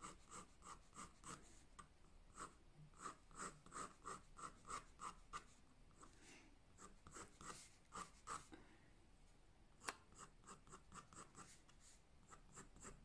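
Faint scratching of a graphite pencil making quick short strokes on drawing paper, about three a second, with a brief pause about six seconds in and a single sharp tick near ten seconds in.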